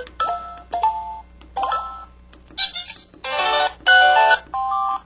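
Samsung SPH-V4900 mobile phone playing one of its built-in ringtone melodies through its small speaker: short, bright electronic beeping notes in quick phrases, with two louder buzzy chords near the end.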